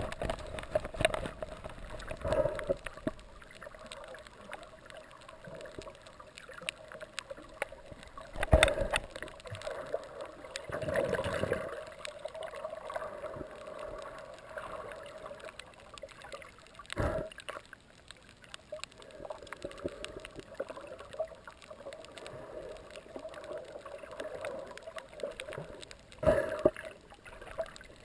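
Muffled underwater noise picked up by a submerged camera: water moving and gurgling around it, with a few sharp knocks spread through.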